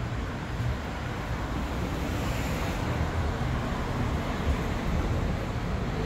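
Steady city-street background noise with a low, fluttering rumble of wind on the microphone.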